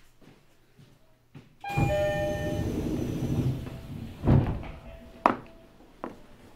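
Passenger-door chime of an E129 series electric train car, heard from inside the car, sounding as the doors slide with a burst of noise, followed by a loud thud a couple of seconds later and a sharp click about a second after that.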